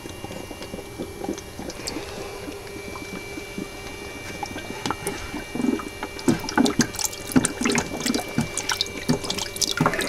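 Water in a bucket splashing and dripping, with HHO gas from the electrolysis cell bubbling up from a hose under the water. The splashes and drips come irregularly and grow busier about halfway through, over a steady faint hum.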